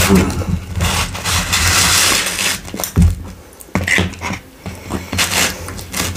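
Close-miked eating: chewing and crunching on kebab pizza, with a few sharp crunches.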